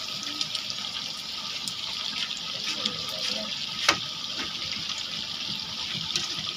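Chicken pieces deep-frying in hot oil in a karahi: a steady sizzle with small crackles, stirred with a metal slotted spoon that clinks sharply against the pan about four seconds in.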